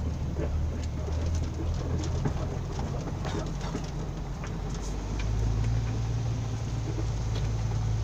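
Six-wheel Isuzu Rocky dump truck's diesel engine pulling in second gear, heard from inside the cab, with light rattles; its drone rises in pitch and gets louder about five seconds in as the truck speeds up.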